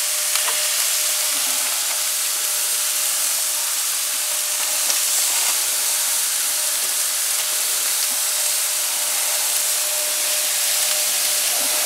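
Lamb chops sizzling on the hot grates of a gas grill: a steady hiss with a faint steady tone beneath it.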